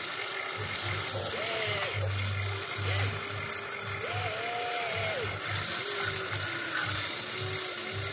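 Small electric motors of an RC tracked excavator whining as it works its boom and bucket, the pitch rising, holding and falling with each movement, over a low buzz that switches on and off.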